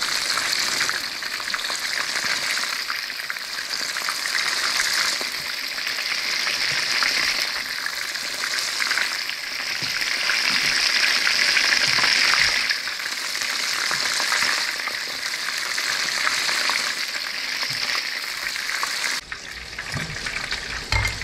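Battered striper pieces shallow-frying in hot oil in a frying pan: a steady crackling sizzle that swells for a moment midway. The sizzle falls off sharply about nineteen seconds in.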